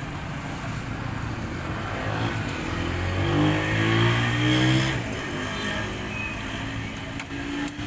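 A motor vehicle driving past: its engine and road noise swell to a peak about four seconds in, then fade, over steady background noise.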